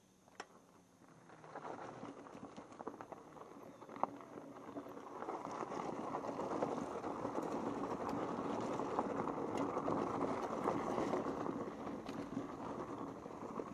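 Dual-sport tyres of an electric enduro bike crunching over a rough dirt trail, with the bike rattling over bumps. It is quiet for the first second or so, then grows louder, with a sharp knock about four seconds in.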